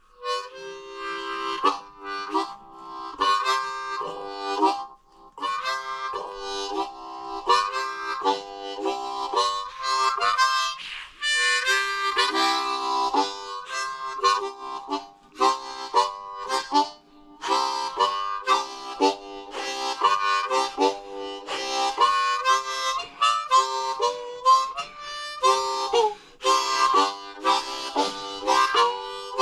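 Solo blues harmonica playing in short rhythmic phrases, mixing single notes and chords, with bent notes sliding in pitch.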